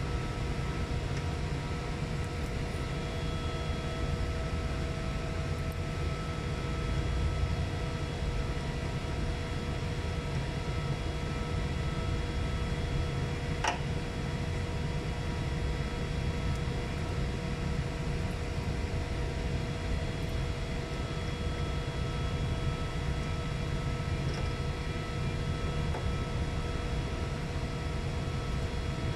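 Steady drone of running machinery: a low rumble with several faint steady whining tones over it. A single sharp click comes about 14 seconds in.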